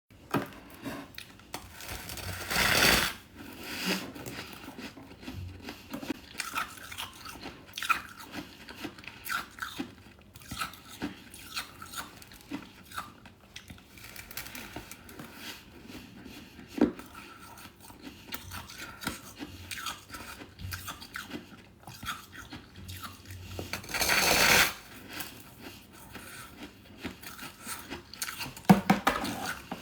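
Biting and chewing hard freezer frost. Steady crackly crunching runs throughout, with two loud, long bites, one about two and a half seconds in and one about twenty-four seconds in, and a burst of quicker crunches near the end.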